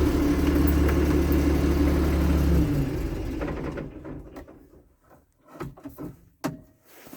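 Case International tractor engine idling, then shut off about two and a half seconds in and running down to a stop. A few faint clicks and knocks follow.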